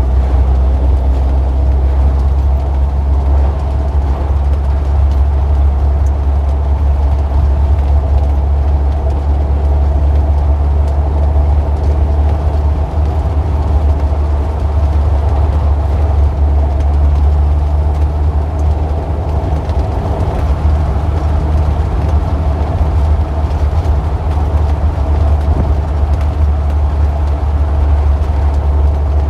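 Street traffic: a steady, loud low rumble of vehicle engines with no single car passing clearly.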